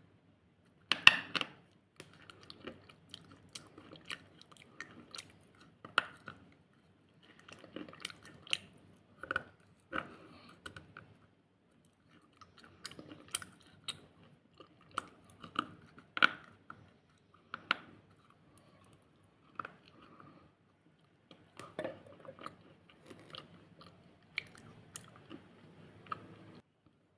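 A person biting and chewing something crisp close to the microphone, with sharp crunches at irregular intervals and short pauses between mouthfuls. The loudest bite comes about a second in.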